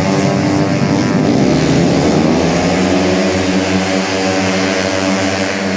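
Several race-tuned 130cc automatic scooters running at high revs close by, their engine notes overlapping and bending in pitch as they pass in the first few seconds, then a steadier engine note.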